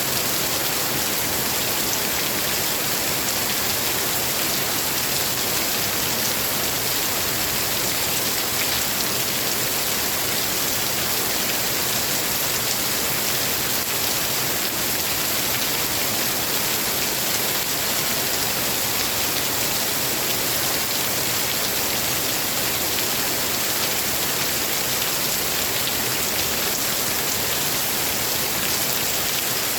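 Steady rain falling, an even, unbroken hiss without thunder.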